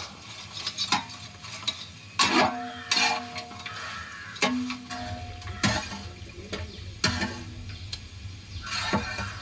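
A long-handled metal ladle stirring and scraping chicken frying in a large pot, with a steady sizzle underneath. Scrapes come at uneven intervals, and several leave a short ringing tone from the pot.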